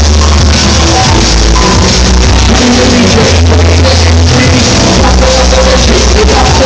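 Loud club sound system playing a back-to-back DJ set of electronic dance music, with heavy bass notes held for a second or more at a time.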